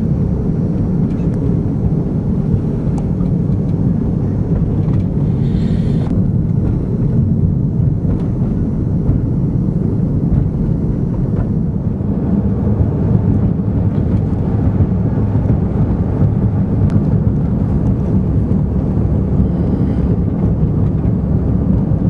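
Steady low rumble of a car being driven, engine and road noise running without a break.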